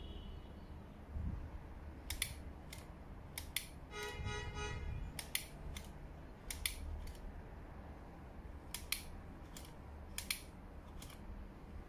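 Sharp metallic clicks, irregular and often in close pairs, from the steel clamp rod and spring-loaded jaws of a handheld electric bee shaker being handled. A brief pitched sound comes about four seconds in, over a low background rumble.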